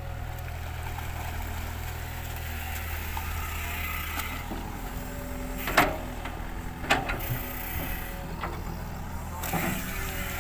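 Hitachi hydraulic excavator's diesel engine running steadily under load while the bucket digs mud from a ditch and dumps it on the bank. Three or four short sharp knocks come in the second half.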